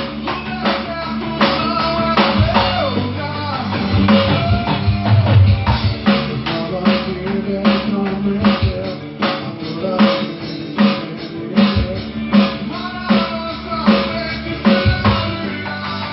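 Drum kit played along with a recorded song: a steady beat of bass drum, snare and cymbals over the song's own music with guitar.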